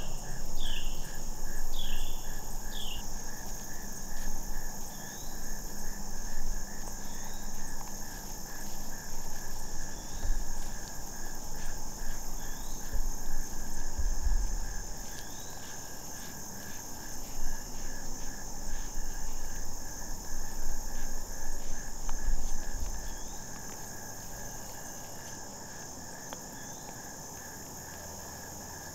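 Evening insect chorus of crickets and other insects: a steady high drone with a fast, even pulsing chirp underneath. Short bird chirps come now and then, a quick run of them in the first few seconds. Irregular low rumbles on the microphone make up the loudest part.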